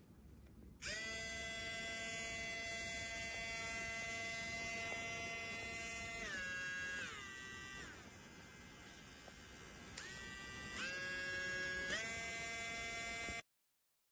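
HARDELL 3.7V battery mini rotary tool switched on about a second in, its small motor running with a high, steady whine. The pitch drops in two steps, then climbs back in steps as the speed setting is changed, and the motor cuts off suddenly near the end.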